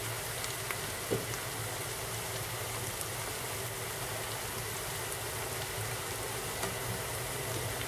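Sliced carrots, onion and dill frying in oil in a pan, giving a steady sizzling hiss with a few faint pops; one pop about a second in is a little louder.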